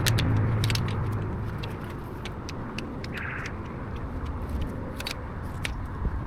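A car passes by, its road noise fading away over the first couple of seconds. Sharp clicks and snaps come at irregular intervals throughout.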